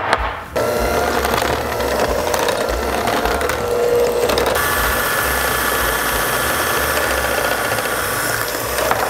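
KitchenAid electric hand mixer with twin beaters running steadily, beating heavy cream into cream cheese in a glass bowl. Its tone changes about halfway through.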